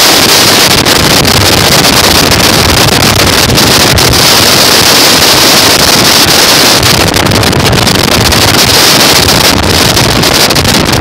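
Strong wind rushing over a phone microphone, a loud, steady rush that overloads it, with a hiss strongest in the high range and no break.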